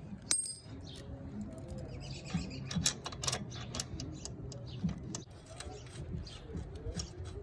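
Light clicks and rattles of small metal parts being handled, with one sharp metallic clink about a third of a second in, the loudest sound.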